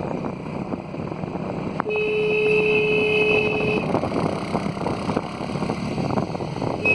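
A vehicle horn held for about two seconds, starting about two seconds in and sounding again right at the end, over the steady running noise of the moving vehicle. It is a warning honk on a narrow mountain road.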